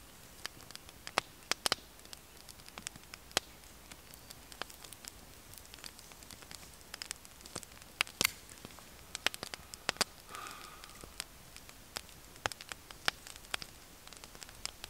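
Small wood fire crackling, with irregular sharp pops and snaps.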